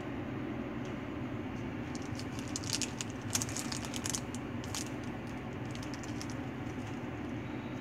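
Clear plastic packaging crinkling and crackling as it is handled, in short clusters of crackles a couple of seconds in, over a steady low background hum.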